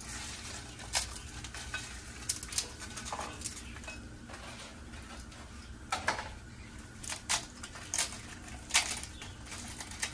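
Crisp fried buñuelos (thin fried dough wafers) being broken by hand into a bowl: irregular sharp cracks and crackles of the brittle pastry, with pieces clattering against the bowl.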